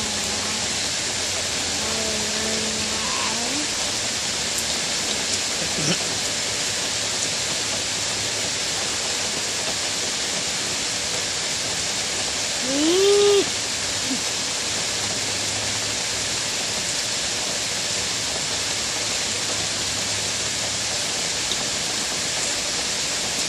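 Steady rain falling, an even hiss. About halfway through, one short call that rises and falls in pitch stands out above it as the loudest sound.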